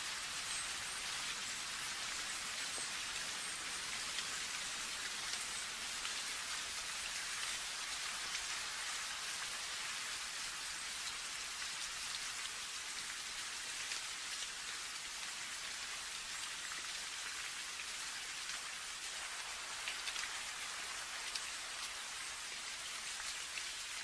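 Steady rain falling, an even hiss with fine scattered drop ticks and no thunder.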